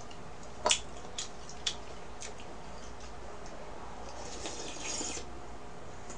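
A handful of small clicks and knocks as an aluminium drink can is picked up from the table, the loudest about a second in. Then a soft hiss about four seconds in, lasting about a second, while the can is tipped up and drunk from.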